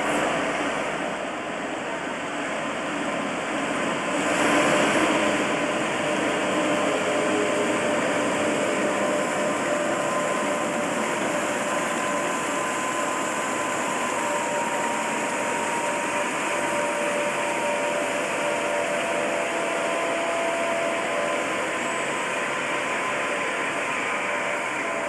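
British Rail Class 87 electric locomotive and its InterCity coaches passing slowly: a steady mechanical whirr with a faint held whine, slightly louder about four seconds in.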